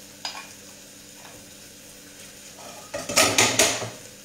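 A single light knock, then about three seconds in a quick run of loud metal clatters from a steel saucepan and spoon being handled and set down, over a faint sizzle of frying from the stove.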